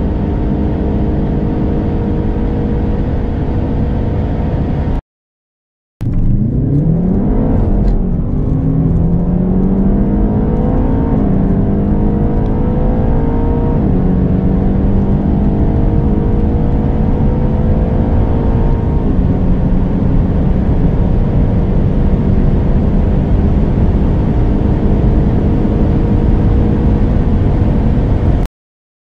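Twin-turbo V8 engines at full throttle, heard from inside the cabin. First a 2020 BMW M8 Competition holds a steady note at about 250 km/h. After a brief cut to silence, a 2020 Audi RS7 pulls hard, its engine note climbing and dropping back with each upshift of its automatic gearbox, the climbs growing slower in the top gears.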